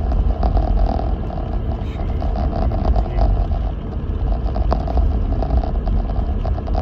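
Lexus GX470 driving slowly through deep snow: a steady low rumble of the engine and tyres, with scattered small clicks and crunches.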